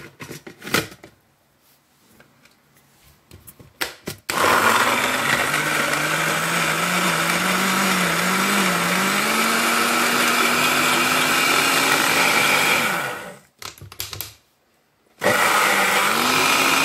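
Small personal blender blending fruit smoothie mix with water. A few clicks as the jar is handled, then the motor runs for about nine seconds, its pitch climbing and wavering as it works through the fruit. It stops briefly and starts again near the end.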